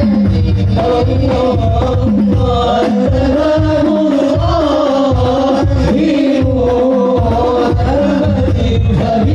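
Male voices singing an Islamic devotional song (sholawat) through microphones, with hand-beaten frame drums (rebana) keeping a steady beat under the melody.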